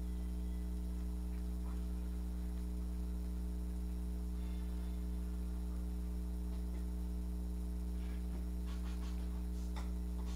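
Steady electrical mains hum, with a few faint clicks near the end.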